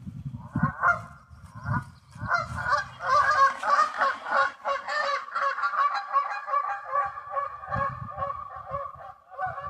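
A flock of geese honking, many calls overlapping into a continuous chorus, with a low rumble during the first couple of seconds.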